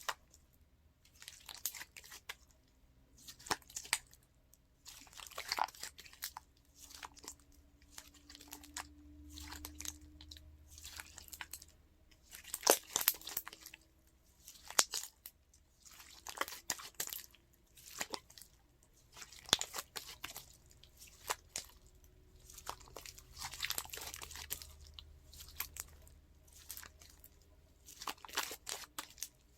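Crunchy slime being squeezed and pressed by hand, giving irregular bursts of crackling and popping with short pauses between them.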